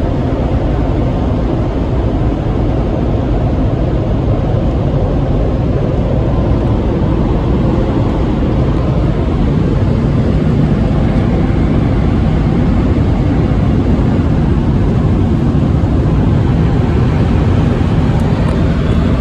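Coleman Hanna car wash dryer blowers running: a loud, steady rush of air heard from inside the car's cabin, growing a little louder about halfway through as the side dryer nozzles come alongside.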